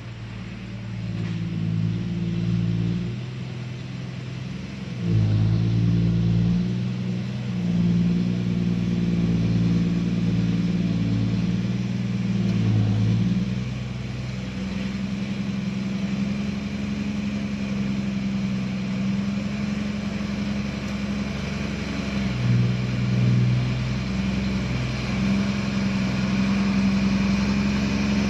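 Engine of heavy work machinery running steadily, its revs stepping up and down, louder from about five seconds in.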